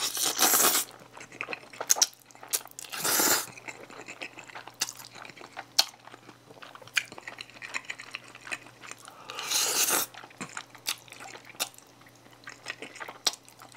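A person slurping and chewing cheese bolognese spaghetti: three loud slurps, at the start, about three seconds in and about nine and a half seconds in, with wet chewing and mouth clicks between them.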